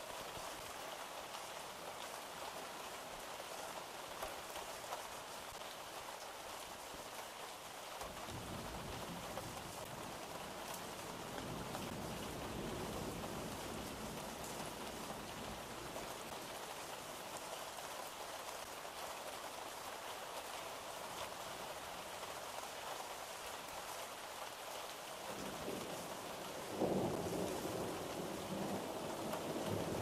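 Steady rain falling, with two low rolls of thunder: one building about a quarter of the way in, and a louder one breaking near the end.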